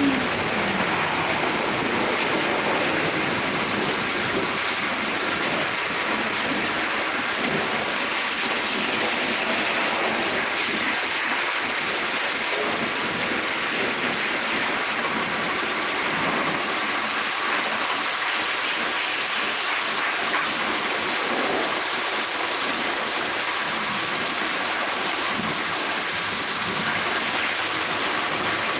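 Steady rushing hiss of water spray at a car wash, even throughout. At the very start, a machine's motor whine drops in pitch and dies away.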